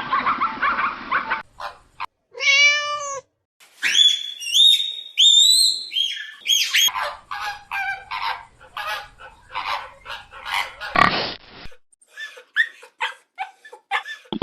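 A string of short animal calls that changes every few seconds: a single wavering call about two seconds in, then a run of high, squeaky rising-and-falling cries, then many short chirps and squeaks to the end.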